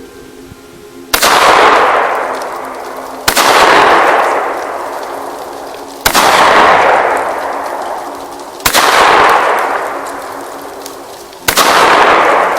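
Five shotgun shots, each a sharp crack followed by a long decaying boom of echo, fired two to three seconds apart.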